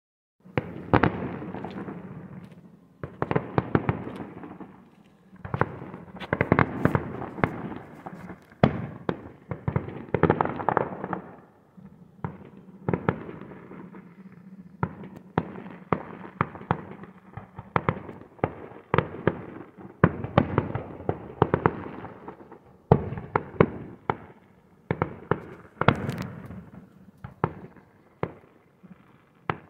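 Fireworks display going off: sharp bangs with crackling between them, in clusters every couple of seconds.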